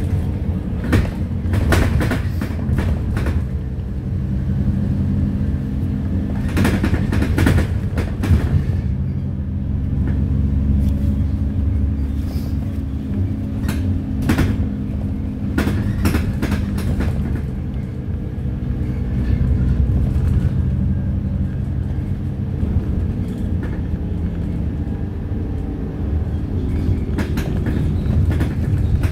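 Heuliez GX 327 city bus heard from inside the passenger cabin while under way: a steady low drone of the engine and running gear, with bursts of rattling and clatter from the body and fittings, the clearest about a second in, around seven to eight seconds in, near fifteen seconds and near the end.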